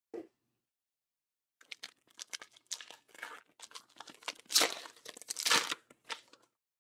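A Topps Heritage baseball card pack's plastic wrapper being torn open by hand: a run of crinkling crackles, starting about a second and a half in, with two loudest rips near the end.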